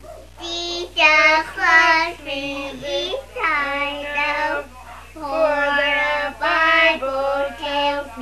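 A four-year-old girl singing a song in short phrases of held notes that rise and fall, with brief breaths between them.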